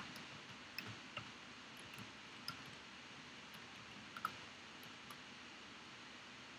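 Faint, irregular clicks of computer keyboard keys being typed, a close pair about four seconds in the loudest.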